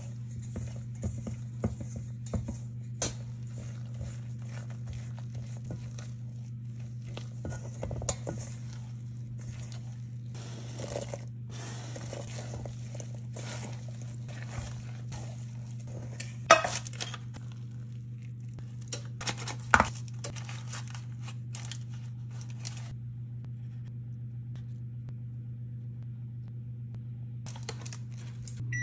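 A spatula scraping and clacking against a stainless steel mixing bowl as batter is stirred and cubed apples are folded in, with two sharper knocks midway. A steady low hum runs underneath.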